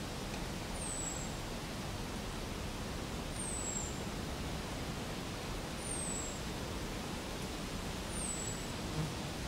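Steady outdoor background hiss, with a short, very high, falling note repeating about every two and a half seconds.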